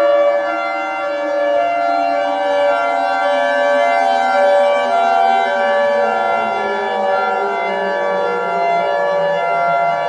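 Emergency alert siren: a loud, dense chord of sustained tones, with its lower pitches sliding slowly downward.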